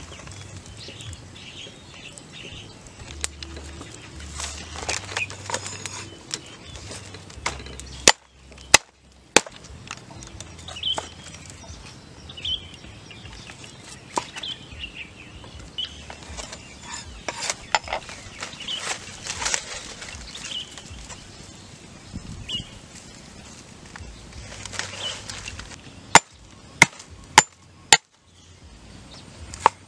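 Rustling and handling noise with short high chirps scattered throughout, broken by sharp knocks: three about eight seconds in, and four near the end, about half a second apart, from a cleaver chopping lemongrass stalks on a round wooden chopping board.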